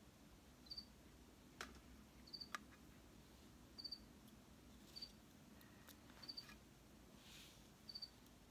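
A cricket chirping faintly, a short high chirp of two or three quick pulses repeated about every second and a half, with a few sharp clicks from small plastic pieces being handled.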